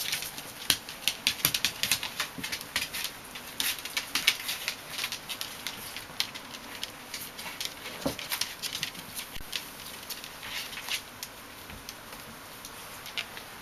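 Bichon Frisé puppies' claws and paws clicking and pattering irregularly on a hard floor as they scamper about. The clicks come thickest in the first half and thin out later.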